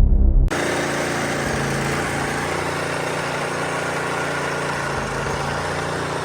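Snowblower's small engine running steadily.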